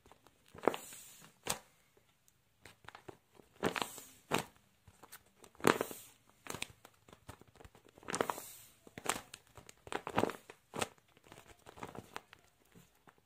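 Paper squishy shaped like a Sour Patch Kids candy bag crinkling and crackling in irregular bursts as it is squeezed and handled.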